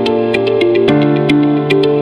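Background music: sustained chords over a low bass note, with light ticking percussion. The chord and the bass change about a second in.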